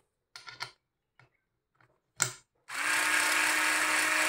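A few light clicks, then about two-thirds of the way in a 3.6 V cordless screwdriver's motor starts and runs steadily at a constant pitch, driving in reverse to back a screw out of a plywood strip.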